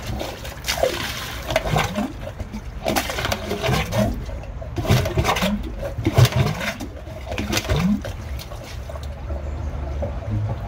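Dirty water gurgling, sloshing and splashing in the rodding eye of a blocked drain as a rod or jetting lance is worked in it, over a low steady hum.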